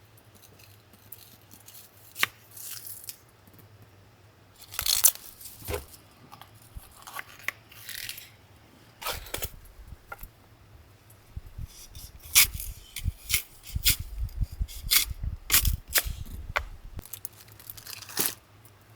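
Handling noises: tearing and crinkling with scattered short clicks and knocks, over a low rumble through the middle.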